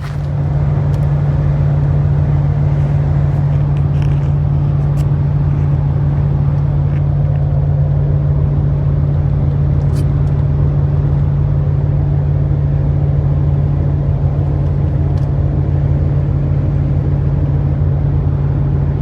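A vehicle engine running steadily, a loud low drone with an even pulse.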